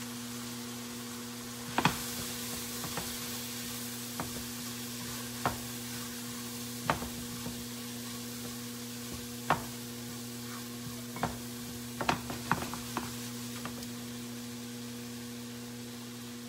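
Chicken sizzling as it fries in a skillet; the sizzle rises about two seconds in. A utensil is stirring it, knocking against the pan a dozen or so times at irregular intervals.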